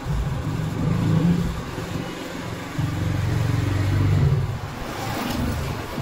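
A low engine rumble that swells and eases in uneven surges.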